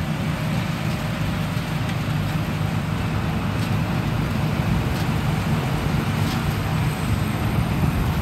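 Tracked rice combine harvester running steadily while cutting and threshing: a continuous low engine drone with an even rushing noise from the machinery over it.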